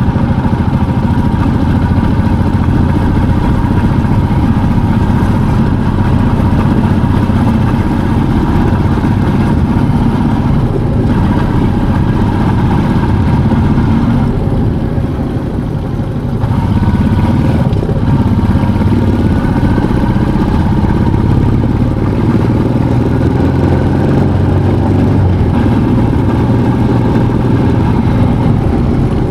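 Motorcycle engine running steadily under load while riding up a winding hill road. The engine note eases off about halfway through, then picks up again.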